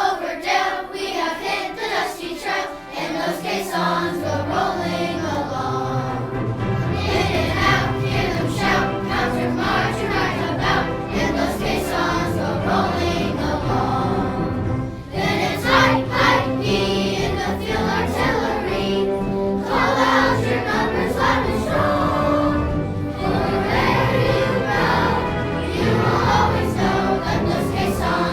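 Choir singing with instrumental accompaniment; a low bass part comes in about four seconds in.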